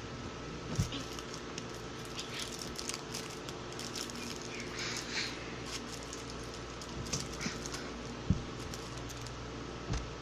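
A drink pack being opened and handled: scattered rustles and light clicks with a few soft thumps, the sharpest a little past eight seconds. A steady low hum runs underneath.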